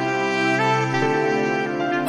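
Alto saxophone playing a slow melody of long held notes, moving to a new pitch twice, over a sustained keyboard accompaniment.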